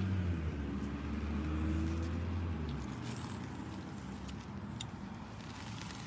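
A motor vehicle's engine running with a steady low hum that stops about three seconds in, leaving faint outdoor background noise.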